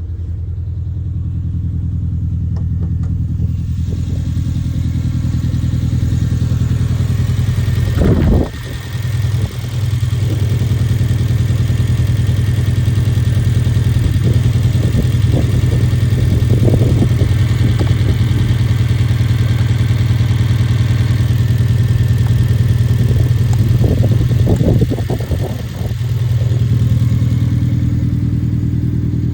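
2011 Hyundai Genesis Coupe engine running steadily with a misfire on cylinder 4. The sound dips briefly twice, about eight seconds in and near the end.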